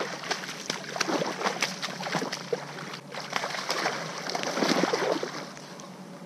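Shallow river water splashing and sloshing in irregular bursts as a hooked silver salmon thrashes at the water's edge and is grabbed by hand.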